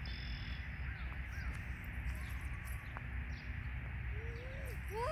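Outdoor ambience in a grassy field: a steady low rumble with a few faint bird chirps. Near the end come two short rising-and-falling cries, the second louder.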